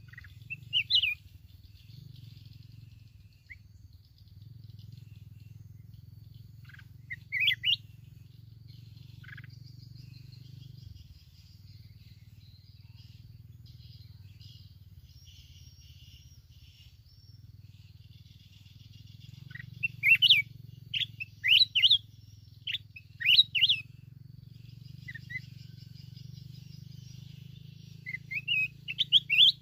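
Red-whiskered bulbul singing short, loud whistled phrases: one about a second in, another around seven seconds in, a quick run of several between about twenty and twenty-four seconds, and more near the end. Between the phrases there is a faint, high, continuous chatter.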